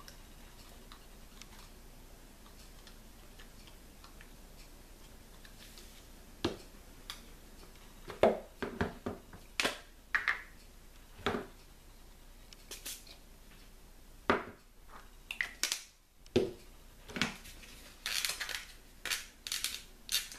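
Scattered small clicks and taps of a plastic spring clamp and small glue bottles being handled and set down on a workbench. The first six seconds hold only quiet room noise; the taps grow thicker near the end.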